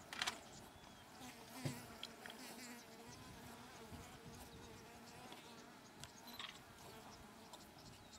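Faint buzzing of a flying insect over a quiet background, with a few soft clicks.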